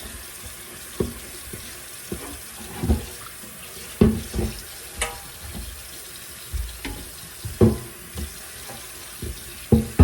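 Kitchen tap running into the sink during hand dish washing, with dishes and utensils knocking and clattering against each other and the sink about a dozen times.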